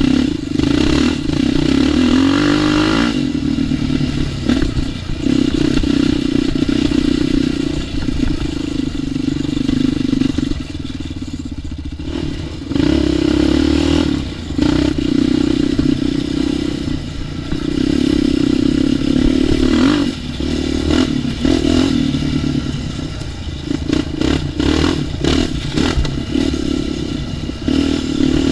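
ATV engine under riding throttle, revving up and easing off again and again, with knocks and rattles from the machine over rough ground toward the end.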